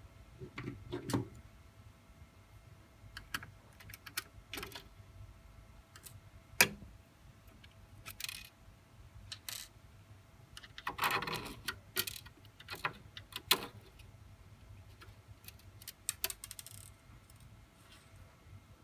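Scattered small metallic clicks and clinks of a screwdriver and loose screws as the corner screws are taken out of an LCD TV's cooling board, with a longer stretch of rattling handling about eleven seconds in.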